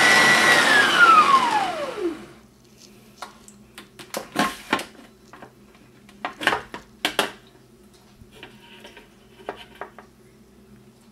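Bosch food processor motor with its citrus-press attachment running at a steady high whine, then switched off about half a second in and spinning down, its pitch falling away over about two seconds. After that come scattered plastic clicks and knocks as the juicer strainer and cone are handled and lifted off the bowl.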